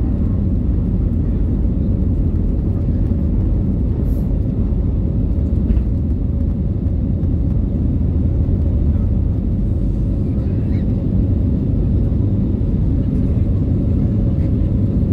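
Airbus A320neo's Pratt & Whitney PW1100G geared turbofans running at climb thrust, heard inside the cabin from a seat over the wing: a steady, deep rumble of engine and airflow noise.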